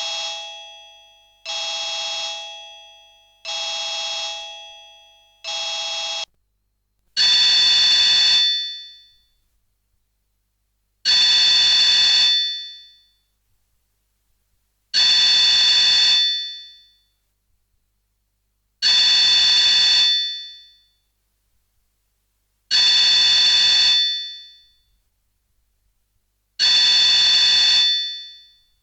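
Sony Ericsson K200i ringtones played on an Alcatel 1054D phone. A short electronic chime repeats every two seconds, each one dying away, and stops about six seconds in. Then a different, higher alert tone rings for about two seconds at a time, once every four seconds.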